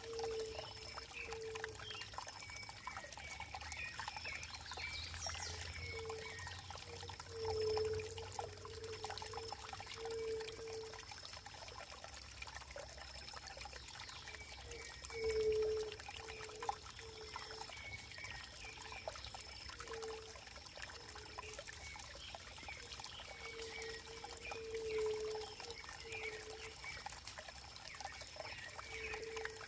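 Running water trickling and pouring steadily, with short low notes recurring at irregular intervals and a few louder swells.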